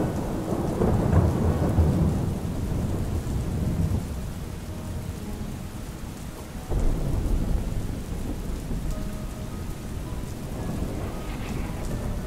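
Steady rain with rolling thunder: one low rumble swells in the first two seconds, and another begins suddenly about seven seconds in and fades slowly.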